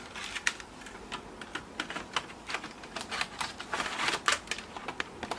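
Irregular plastic clicks and scrapes as the Toshiba Satellite L50C's optical DVD drive is slid back into its bay in the laptop's side, with a couple of longer sliding scrapes in the middle.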